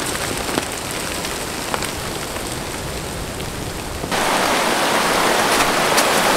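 A steady rushing noise with a few sharp clicks, then, after a cut about four seconds in, the louder, even rush of a shallow rocky river as someone wades through it.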